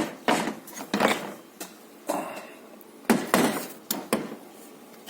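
Several sharp knocks and clunks, about five in all, as an unbolted engine bracket is worked out of a Mitsubishi Pajero's engine bay and bumps against the engine and surrounding parts.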